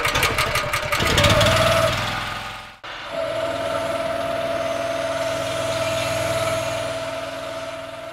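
Petrol engine of a van-mounted pressure washer running, throttled back to about half revs for applying biocide through a chemical injector. Its sound shifts about a second in, and after a sudden cut it settles into a steady hum with a constant whine.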